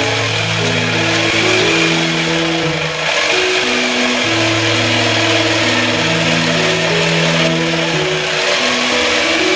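Background music with held bass and chord notes that change every second or so, over a steady hiss-like noise.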